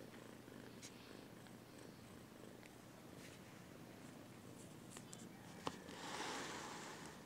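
Mother cat purring softly and steadily while nursing her newborn kittens, a sign she is content. Near the end comes a sharp click and then a brief rustle.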